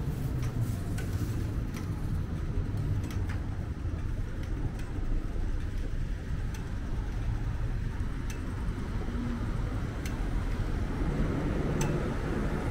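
City street traffic: a steady low rumble of passing cars and other road vehicles, with a few faint sharp clicks now and then.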